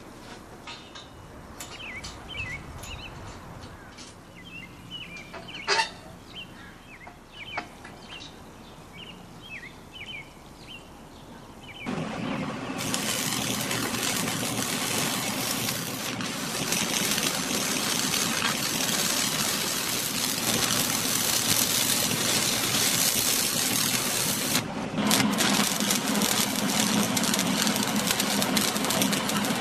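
Small birds chirping, with one sharp knock about six seconds in. Then, from about twelve seconds in, an electric arc welder joins steel railing posts: a loud, steady crackling hiss with a low hum under it. It breaks off briefly near the end and starts again.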